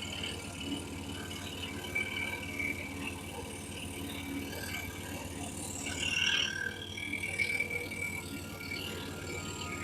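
Excalibur EX21 scroll saw running and cutting a piece of wood flooring: a steady, fast mechanical rattle from the reciprocating blade.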